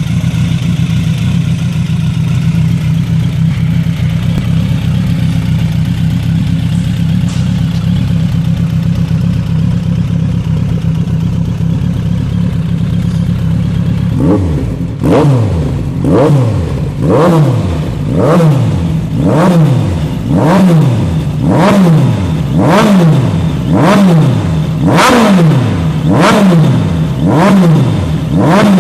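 Suzuki Bandit 1200's inline-four engine running through a Hurricane aftermarket exhaust. It idles steadily for about fourteen seconds, then is revved in quick throttle blips about once a second, each rise in pitch falling straight back.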